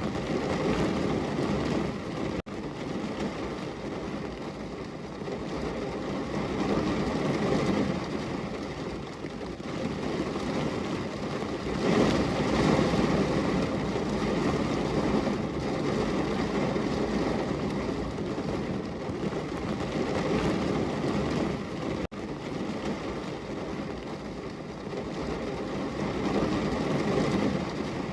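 Heavy rain pouring on a window, a dense steady hiss that swells and eases every few seconds, with two momentary dropouts.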